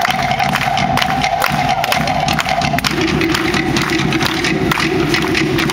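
Live Polynesian dance drumming: fast, dense drum strikes, with one steady held tone that drops to a lower pitch about three seconds in.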